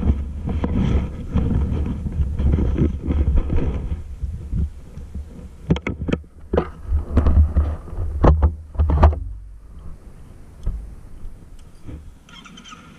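Low, pulsing wind rumble on a body-worn camera's microphone with handling knocks, and a quick run of sharp clicks midway through. It goes quieter afterwards.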